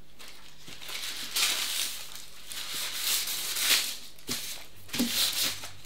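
A sheet of baking paper rustling and crinkling in several short bursts as it is held and spread with butter.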